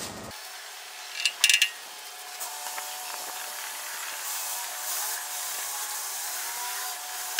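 Loader tractor engine running steadily. About a second and a half in there is a brief cluster of sharp metallic clinks.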